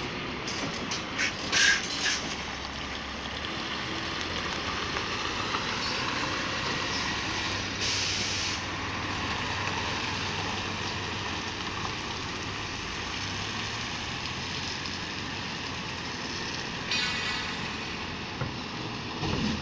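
Scania lorry's diesel engine running as it hauls a loaded low-loader away, with a short air hiss about eight seconds in. A few sharp clicks and knocks sound in the first two seconds.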